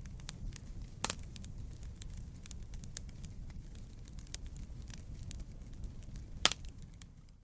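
Wood fire crackling in a fireplace: a steady low rumble of flames with frequent sharp snaps and pops. Two pops, about a second in and near the end, are louder than the rest.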